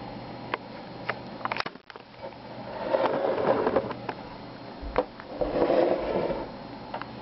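Handling noise as a glass of water and the wired electrode clips are moved about on a wooden desk: a few light knocks and clicks, then two stretches of scraping and rustling, the first about two seconds in and the second near the end.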